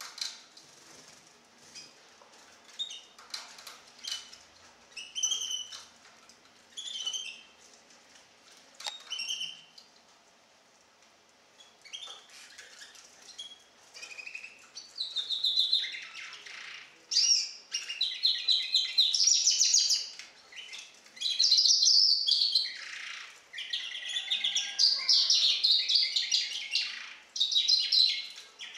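Four-month-old goldfinch × canary hybrid (saka melezi) singing. It gives scattered single chirps for the first dozen seconds, then from about fifteen seconds in breaks into a loud, fast, continuous twittering song.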